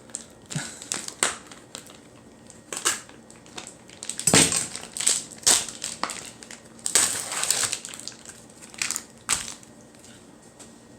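A knife cutting through thick-cut bacon: irregular crunching strokes, loudest in two clusters around four and seven seconds in.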